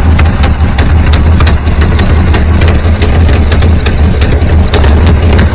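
Pontiac Firebird engine idling steadily at low speed, under 700 RPM, while its ignition timing is being set. A sharp, even tick comes about five or six times a second over the idle.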